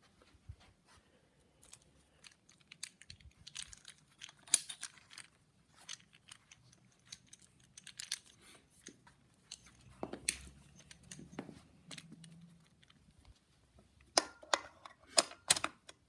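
Scattered clicks, knocks and rustles of an old upright vacuum cleaner and its power cord being handled, with no motor running. A cluster of sharper clicks near the end as the plug goes into a wall socket.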